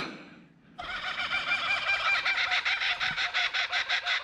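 A bird calling in a fast, even run of repeated pitched notes, about nine a second, starting abruptly about a second in.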